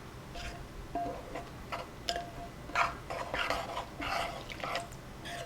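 A spoon stirring wet oat-flour batter in a bowl: irregular wet scraping strokes about every half second, with light clinks of the spoon against the bowl.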